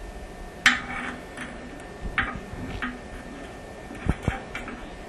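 A handful of sharp clicks and clinks, the loudest about a second in, from tools and parts being handled while a toilet tank is taken apart.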